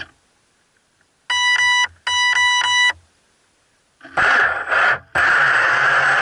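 Two short bursts of electronic beeping, then about four seconds in the radio-controlled boat's motor starts up with a whine, cuts out for a moment and runs on steadily.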